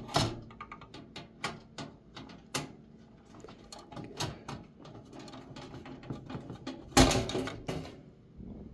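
A motherboard being worked free and lifted out of a thin sheet-metal computer case: scattered clicks, taps and scrapes of the board and metal, with a louder clatter about seven seconds in.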